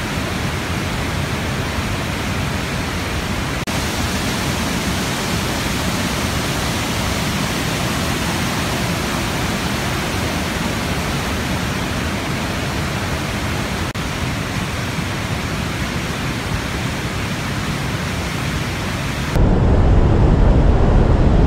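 Steady roar of rushing water from Vernal Fall and the Merced River rapids below it. Near the end it cuts to a louder, deeper rumble.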